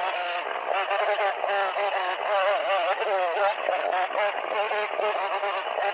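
Chainsaw cutting into a wooden log, its sound sped up with the footage so the engine note is pitched high and swoops up and down rapidly as the throttle is worked.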